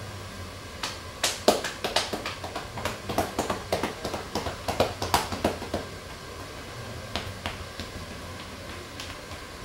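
Hands slapping a person's clothed back in rapid percussive massage strokes: a quick, irregular run of sharp slaps that thins to occasional strikes after about six seconds.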